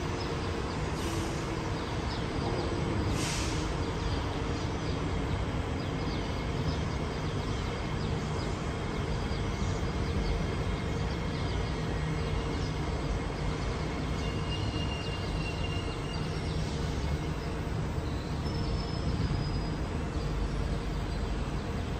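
C151A MRT train pulling into the platform and slowing to a stop: a steady rumble with a few brief high whines from its motors or brakes in the second half. A short hiss comes about three seconds in.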